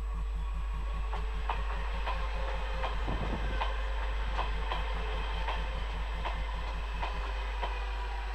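Red DSB S-tog electric commuter train passing close by, its wheels clicking over the rail joints about twice a second. The clicking stops shortly before the end as the last car goes by.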